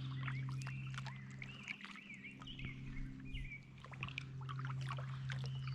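Kayak gliding on a river with small splashes and drips from the paddle, while a songbird chirps for the first few seconds; a steady low hum runs underneath.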